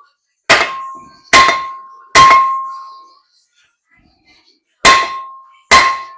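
Hammer blows on a 2005 Ford Excursion's stuck hub assembly, struck to knock it loose: five sharp metallic clangs, three a little under a second apart, then a pause of about two seconds and two more, each ringing briefly.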